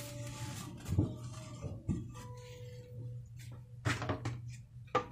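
Stainless steel mixing bowl handled in a metal sink: a few short knocks and clinks, the last and loudest near the end, over a steady low hum.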